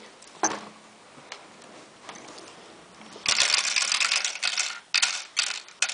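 Plastic Lego pieces being handled: a single click, then a spell of dense rattling and clicking for about a second and a half, then a few separate sharp clicks.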